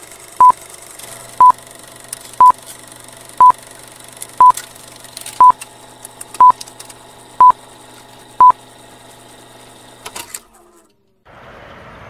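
Film-leader countdown sound effect: a short, high beep once a second, nine times, over faint old-film crackle with clicks and a low hum. After a few last crackles and a brief silence, steady outdoor background noise comes in near the end.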